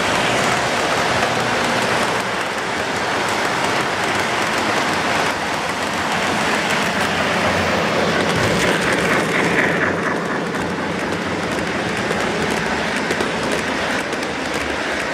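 O-gauge model trains rolling along three-rail track, a steady running noise of wheels on the rails. A freight train passes, then a steam locomotive pulling passenger cars.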